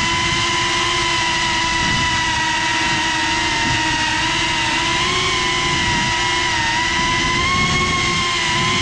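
FPV drone's brushless motors and propellers whining steadily, recorded by the GoPro mounted on the drone itself, with a rough low rush beneath. The whine's pitch wavers slightly with throttle changes.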